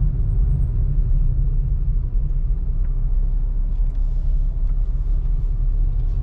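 Car driving in slow traffic, heard from inside the cabin: a steady low rumble of engine and road noise.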